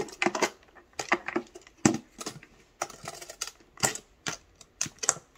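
Aluminium makeup case being closed and its metal latches fastened: a string of irregular sharp clicks and clacks from the latches, hinges and metal frame.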